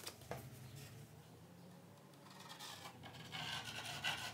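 A sanding disc rubbed by hand over a pine board, a scratchy rubbing that starts about two seconds in and grows louder. A couple of light knocks near the start as the disc is set down on the wood.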